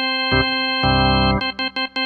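Casio CTK-4200 arranger keyboard playing an organ tone: a held chord with a bass note, then short, sharply cut chord stabs in a rhythm.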